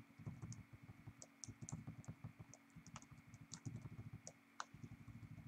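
Faint, quick, irregular taps of computer keyboard keys.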